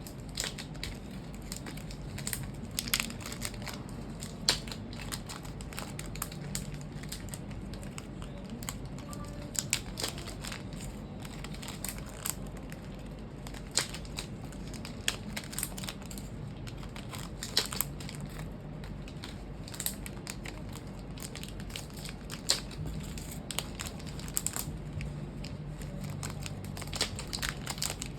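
Irregular sharp clicks and crackles of small smartphone parts and tools being handled during a repair, over a steady low hum.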